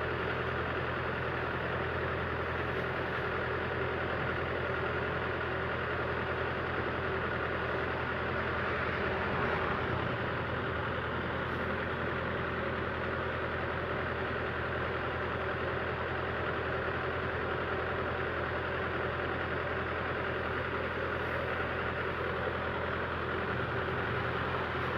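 Yanmar YH850 combine harvester's diesel engine running steadily, with a slight swell about nine seconds in.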